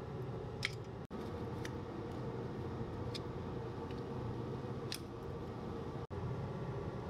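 Steady low kitchen hum, with a few faint light ticks as bay leaves and star anise are dropped by hand into a cast-iron casserole of broth.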